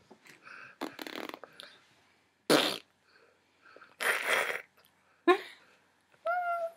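Small children blowing raspberries: four short spluttering blows, the loudest about two and a half seconds in. A short high-pitched child's call follows near the end.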